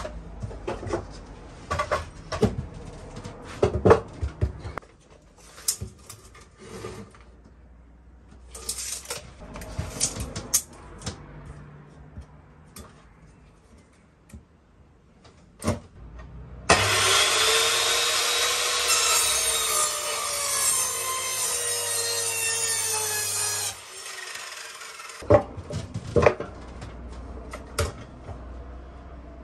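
Pallet boards knocking and clattering on a wooden workbench as they are handled. About two-thirds of the way through, a miter saw runs loudly for about seven seconds, its pitch dipping and recovering as it cuts the wood, then stops suddenly.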